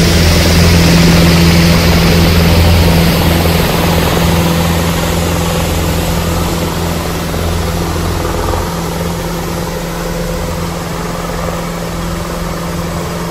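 3D-audio demonstration sound: a steady low mechanical drone with a hiss on top, placed to move from above the listener to below. It slowly fades, and its high hiss dies away within the first few seconds.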